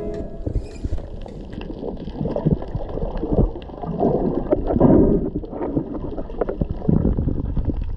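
Muffled underwater rush and gurgle of water and bubbles heard through a submerged camera. It swells louder about four to five seconds in and again near seven seconds.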